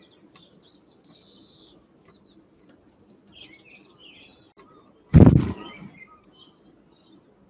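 Small wild birds at a feeder giving short, high chirps and calls, with a loud, close flutter of wings about five seconds in that lasts under a second.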